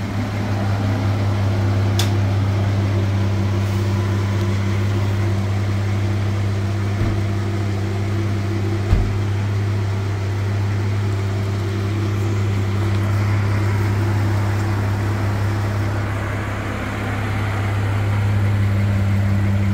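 Toyota Land Cruiser 80-series engine idling with a steady, even hum, with a single light knock about nine seconds in.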